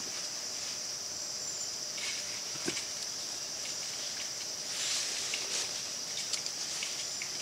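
A steady high-pitched insect drone, with scattered short rustles and knocks as the flysheet fabric is handled and pulled on the ground.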